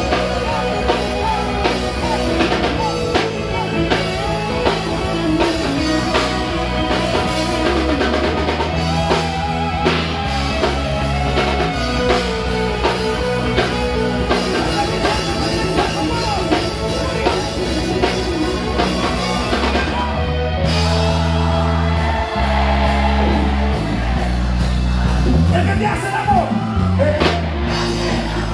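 Live rock band playing loud through a PA: drum kit, electric bass and guitar with a singing voice. About two-thirds of the way through, the voice drops out and the band carries on with heavy, held bass notes.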